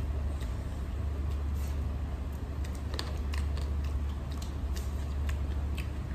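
Chopsticks clicking against a stainless steel bowl and chewing while eating rice and steamed pork ribs: scattered light clicks over a steady low hum.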